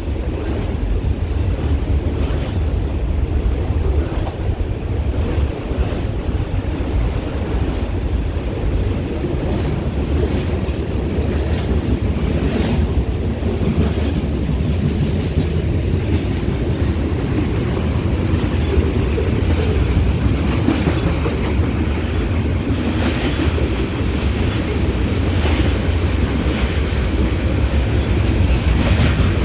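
Freight train cars rolling past at speed: a steady rumble of steel wheels on the rails, with repeated clicks as the wheels cross rail joints.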